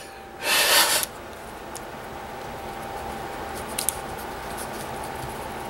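A short hissing rush about half a second in, then low room hiss with a few light plastic clicks near four seconds as a Bakugan toy ball is picked up and handled.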